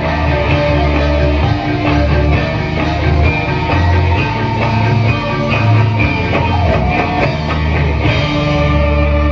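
Loud instrumental music from the live band accompanying a topeng ireng dance, with a heavy pulsing bass and drum beat under melody lines; about eight seconds in the beat gives way to a held low note.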